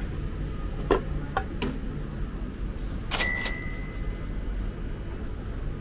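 A few sharp clicks and knocks as a drink can is taken out of a vending machine's dispensing slot, then a metallic clink that rings on for about a second, over a steady low hum.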